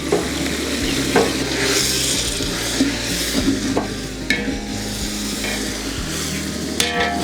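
A spoon stirring and scraping through a large pot of sizzling onion-tomato masala as chopped mint, coriander and green chillies are mixed in. There are a few sharp metal clinks of the utensil against the pot, one about four seconds in and another near the end.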